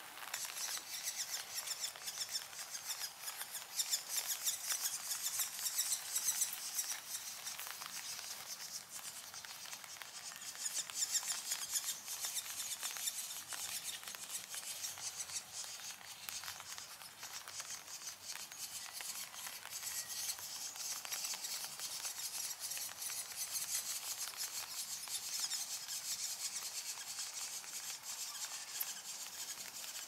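Steady patter of rain and drizzle: many small drops tapping on leaves and bark, a dense crackling hiss that swells and eases.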